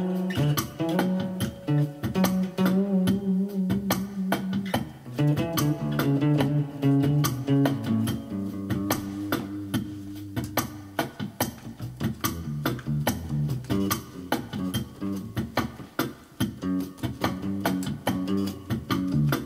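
An improvised bass line played on a short-scale Ibanez Mikro electric bass, with held low notes, over a steady drum-machine beat.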